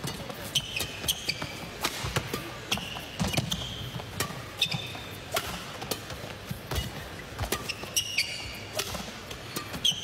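Badminton rally: repeated sharp cracks of rackets striking the shuttlecock, rubber court shoes squeaking on the court mat, and the thud of footwork.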